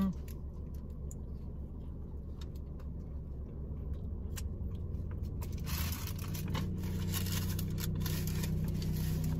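Steady low hum inside a car, with a rushing noise that swells in about halfway through and stays. Over it, a few faint sharp clicks of chewing a foil-wrapped lamb shawarma wrap.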